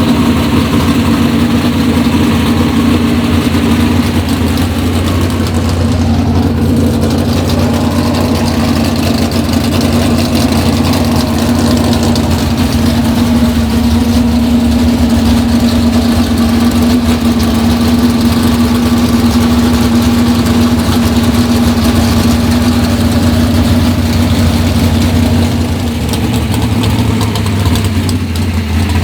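Engine of a pro street 1978 Oldsmobile Cutlass Supreme wheelstand car idling loudly and steadily.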